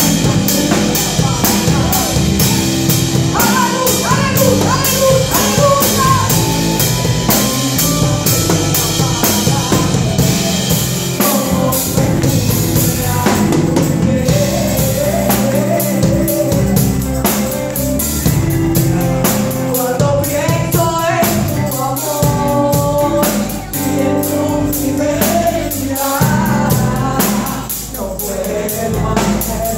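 A woman singing into a microphone over a band's steady drum-kit beat, her voice amplified through the hall's sound system.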